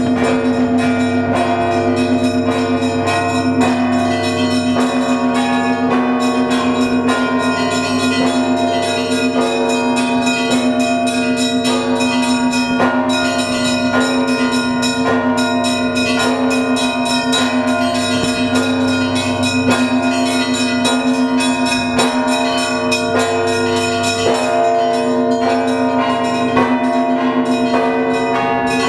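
Russian Orthodox Paschal bell ringing from the Trinity-Sergius Lavra belfry, ringing for the evening service. Many bells peal together: smaller bells are struck rapidly, several times a second, over the steady hum of the large bells.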